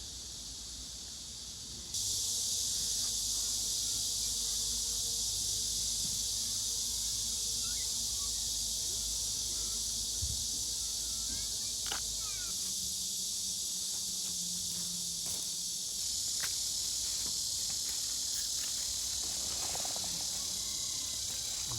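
Crickets and other insects chirping in a steady, high-pitched chorus, stepping up louder about two seconds in.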